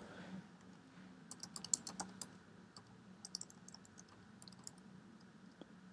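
Faint typing on a computer keyboard: a quick run of keystrokes about a second in, another past the three-second mark, then a few scattered single taps.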